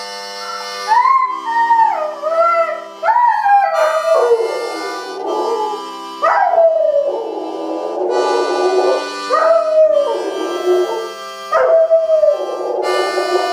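A dog howling along to music, its long wavering howls rising and falling in pitch over held musical chords that start and stop.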